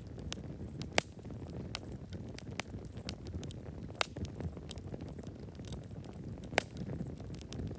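Campfire of burning wood: a steady low rush of flame with scattered sharp crackles and pops, three of them much louder than the rest. Crickets chirp faintly and evenly high above the fire.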